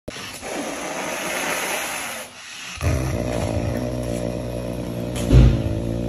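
Caracal hissing, then a low, steady growl from about three seconds in, with a louder burst near the end: a defensive warning at its owner.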